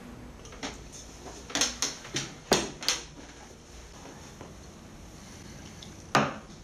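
A quick run of about five sharp knocks and clinks of household handling, then a single louder knock near the end as a glass tumbler is set down on a wooden desk.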